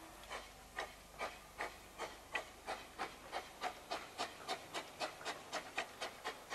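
15-inch-gauge miniature steam locomotive pulling away, its exhaust chuffing in an even beat that quickens from about two to nearly four beats a second as it gathers speed.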